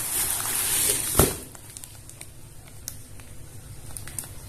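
Plastic fish bag crinkling loudly as it is gripped and pulled out of a cardboard box for about the first second, ending in a sharp click. Faint scattered rustles of plastic follow.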